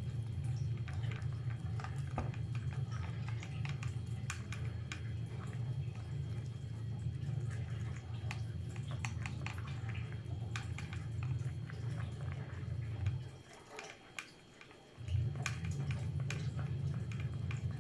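Cat eating wet tuna-in-jelly cat food from a plastic bowl: quick, wet chewing and licking clicks. Under it runs a steady low hum that drops out for about two seconds past the middle.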